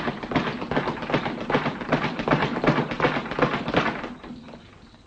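Rapid, irregular tapping and clacking, dense and continuous, that stops about four seconds in.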